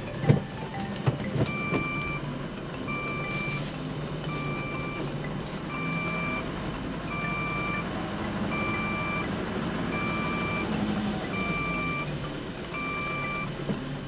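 A large truck's reversing alarm beeps steadily, a long beep about every second and a half, over its diesel engine running: the truck is backing up under a swap body to couple it. A few sharp clicks and knocks sound in the first two seconds.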